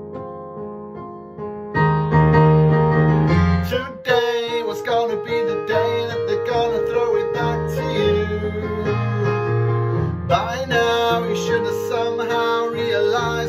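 Pop song backing track led by piano, growing much louder about two seconds in, with a man singing along from about four seconds in.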